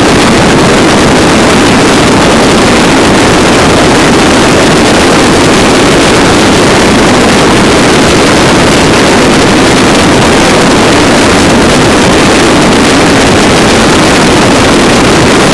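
Loud, steady rush of wind on the microphone with engine and road noise underneath, from a vehicle cruising at highway speed, most likely the camera rider's own motorcycle.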